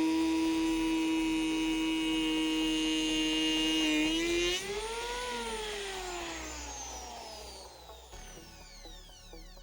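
Parkside PEH 30 E5 750 W electric planer motor running at a steady high whine. About four and a half seconds in it is switched off, and the motor and cutter drum wind down with a falling whine that fades over several seconds.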